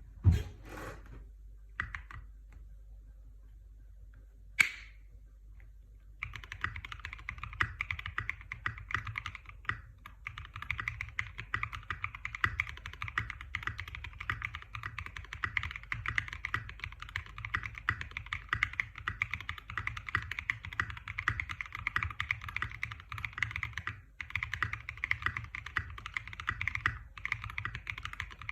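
Custom mechanical keyboard with lubed Black Cherry Pie switches, an FR4 plate and SA-profile keycaps being typed on. A few single key strokes come first, then fast, continuous typing starts about six seconds in, with two short breaks near the end.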